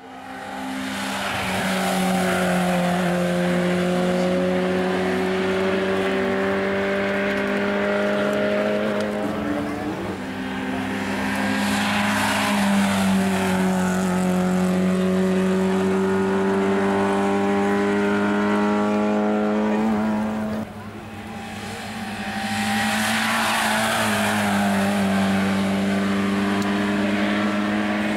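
Racing car engines at high revs accelerating hard uphill. The engine note climbs slowly through each gear and drops at each upshift, and a sudden break about two-thirds of the way through brings in another car.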